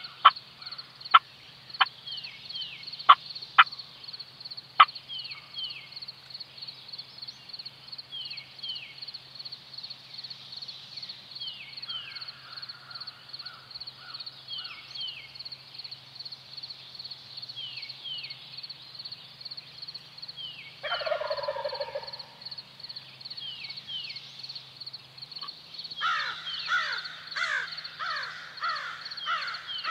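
Wild turkey gobbler gobbling once about 21 seconds in, a short descending rattle, over a steady high pulsing trill and repeated down-slurred songbird chirps. A few sharp clicks come in the first five seconds, and a louder run of rapid repeated calls starts about four seconds before the end.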